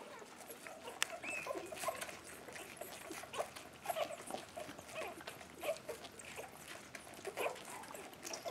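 Standard schnauzer puppies suckling at bottles, giving faint, irregular squeaks and whimpers among soft wet suckling and licking noises.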